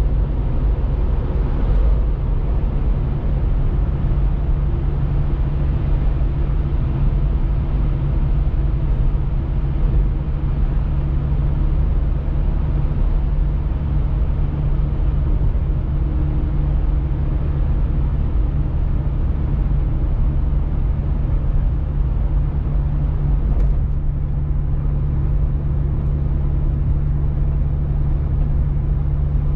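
Car driving, heard from inside the cabin: a steady low rumble of road and engine noise with a constant low hum.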